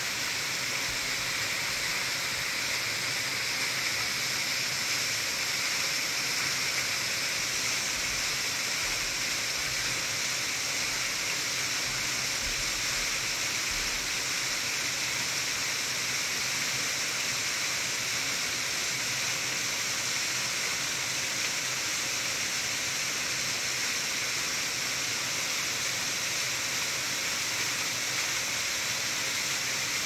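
Mountain waterfall, partly frozen over, pouring into a rocky plunge pool: a steady, hissing rush of falling water that never changes.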